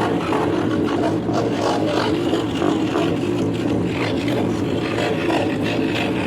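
Electric scroll saw running steadily with a fast, even reciprocating buzz as its blade cuts through teak.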